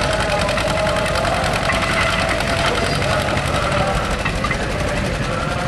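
A John Deere B's two-cylinder engine working hard under load as the tractor pulls a weight-transfer sled, with a steady, rapid, even exhaust beat.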